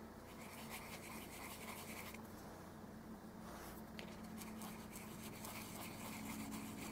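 Small paintbrush dabbing and scrubbing oil paint onto a canvas pad: faint, soft bristle brushing, most active in the first couple of seconds, over a low steady hum.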